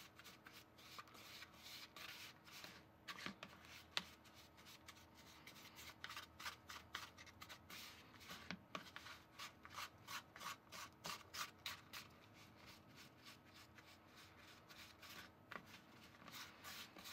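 Faint, irregular scratching of a small plastic spoon scraping and pressing crumbly sugar-cookie dough against the side of a plastic mixing bowl, to work the dry crumbs until they cling together.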